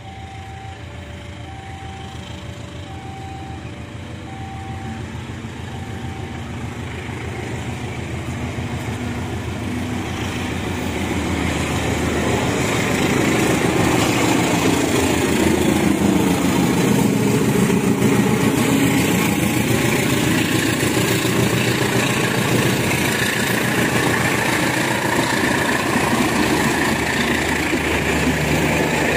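A level crossing alarm sounds in two alternating tones for the first several seconds while a diesel locomotive hauling a passenger train approaches. Its engine grows steadily louder, peaks about halfway and drops in pitch as it passes, and then the coaches roll by.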